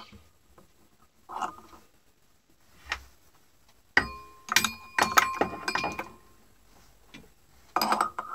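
Tap turned by hand in a mini mill's drill chuck, threading a hole in aluminium: scattered metallic clicks and clinks with a brief ring. They come in a dense cluster about four seconds in and again near the end.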